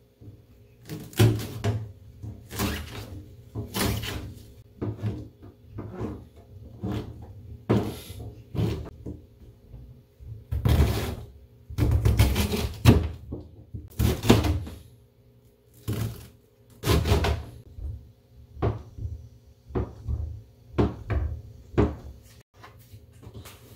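Kitchen knife chopping on a plastic cutting board through perilla leaves, onion and tofu: uneven knocks of the blade hitting the board, about one to two a second.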